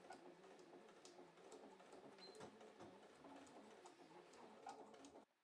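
Near silence: a faint hiss with small scattered clicks and rustles.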